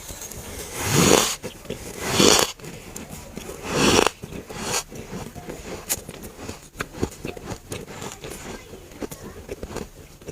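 Three loud bites into chunks of freezer frost, each a swelling crunch about half a second long, followed by quieter chewing with many small crunching clicks.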